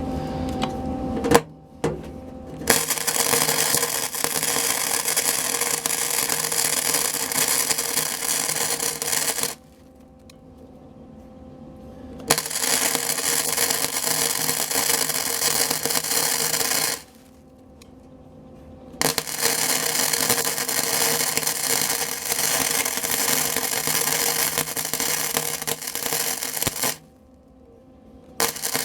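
Arc welder crackling as it lays weld beads on a sheet-steel cab floor patch. There are three runs of about seven, five and eight seconds, with short pauses between them.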